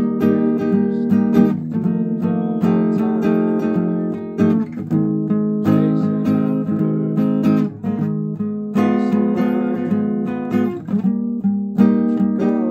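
Steel-string acoustic guitar played with the fingers, picked and strummed chords ringing out and changing every second or two.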